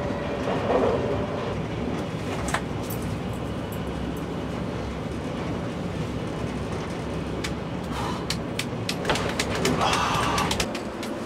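Steady rumble of a moving passenger train heard from inside the carriage, with a few short clicks and knocks scattered through it.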